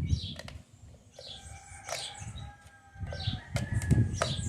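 Birds chirping over and over, each chirp a quick falling note, with a few sharp clicks.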